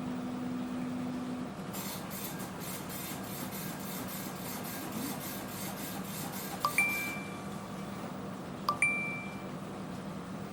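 Two short, bright electronic dings about two seconds apart, over a steady low hum.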